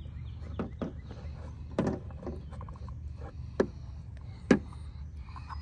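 Fingers working the plastic tether ring of a gas cap onto the tab of a fuel filler door, making a few sharp plastic clicks a second or two apart and light handling ticks between them, over a steady low hum.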